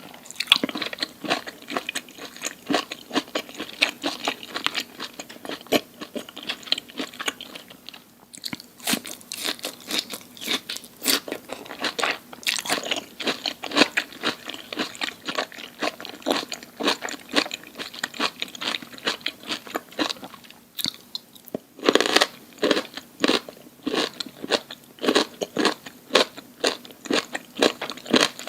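Close-miked crunchy chewing and biting of food, a dense run of short crackling crunches. It eases off briefly about a third of the way in and again about three quarters through, then picks up with louder crunchy bites.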